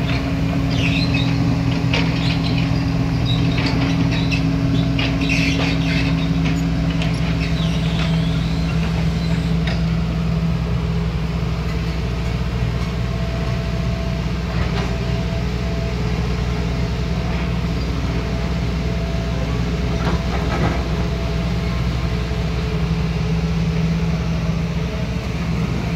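Kobelco SK140HD excavator's diesel engine running steadily as it works. Scattered clanks and knocks come mostly in the first ten seconds and again around twenty seconds in.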